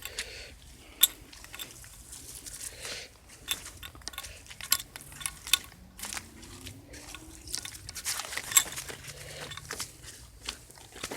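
Footsteps crunching along a dirt trail in an irregular walking rhythm, with a couple of sharper snaps, about a second in and near the end.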